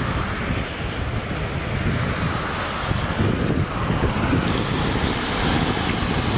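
Wind buffeting the microphone, with a steady rush of road traffic underneath.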